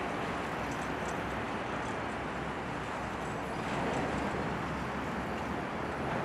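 Boeing 787-9 Dreamliner on short final, its jet engines at approach power giving a steady rushing rumble with no change in pitch.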